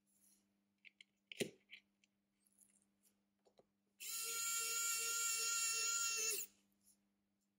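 Small electric screwdriver motor whirring steadily for about two and a half seconds, after a few light clicks and taps of small parts.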